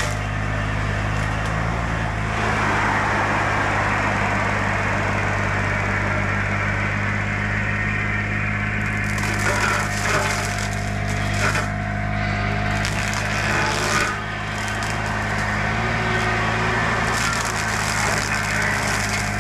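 Bobcat E35 mini excavator's diesel engine running steadily under load while a Baumalight CXC530 hydraulic brush mower on its arm shreds brush and small wood, with repeated splintering and cracking over the engine.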